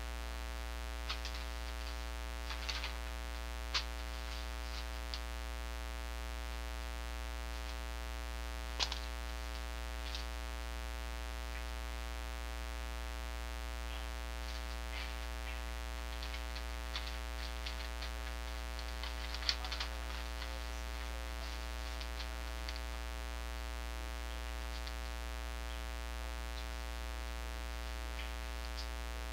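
Steady electrical hum on the recording, with a few faint, scattered clicks and rustles.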